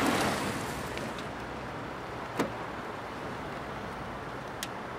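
A taxi pulling up, its road and engine noise swelling at the start and then fading to a steady street hiss. A click about two and a half seconds in as its rear door is opened, and a sharp tick near the end.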